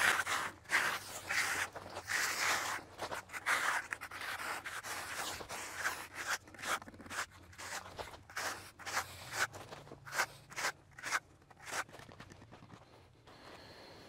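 A hand concrete edger scraping back and forth along the edge of a setting concrete slab in a run of rubbing strokes. After about six seconds the strokes give way to footsteps on gravelly dirt.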